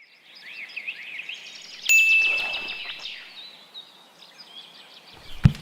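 Birds chirping in quick, repeated little calls. About two seconds in comes a single bright ding that rings on and fades over about a second.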